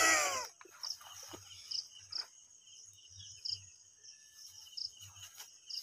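Crickets chirping: a steady high trill with short louder chirps about once a second. A brief human voice with falling pitch sounds at the very start.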